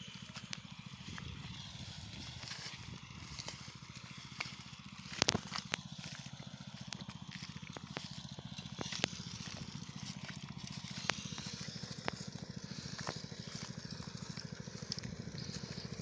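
Small engine running steadily with a fast, even low pulse, over scattered sharp clicks and a louder crack about five seconds in.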